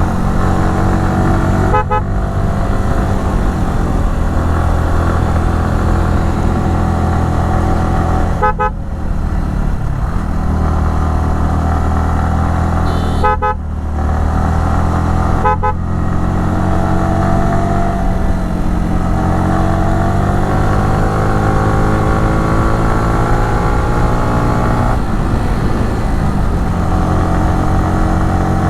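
Yamaha R15 V3's single-cylinder 155 cc engine running hard under the rider, its note rising and falling in pitch. The sound cuts out briefly four times, about 2, 8.5, 13.5 and 15.5 seconds in.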